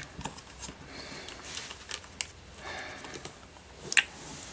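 Light handling noises from a plastic printer ink cartridge and its ink pouch: soft rustles and scattered small clicks, with a sharper click near the end.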